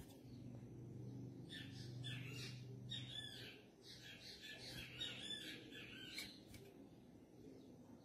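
A coleiro-do-norte (Sporophila seedeater) singing one long, fast phrase of jumbled twittering notes. It starts about a second and a half in and stops after about five seconds, over a faint low hum.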